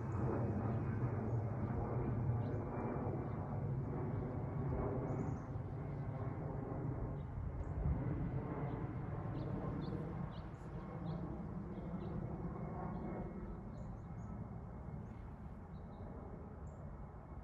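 Jet airliner's engine roar overhead, a steady low rumble that slowly fades as the plane moves away. Birds chirp briefly now and then over it.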